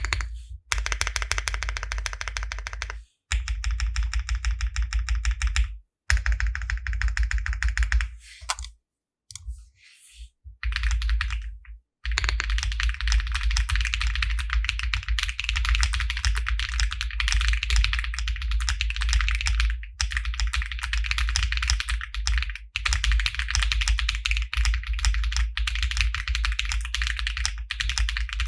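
Zoo65 mechanical keyboard with lubed Akko Lavender switches, lubed TX stabilizers and a POM plate being typed on in fast runs of keystrokes. The runs break off briefly several times, with a longer pause about nine to ten seconds in.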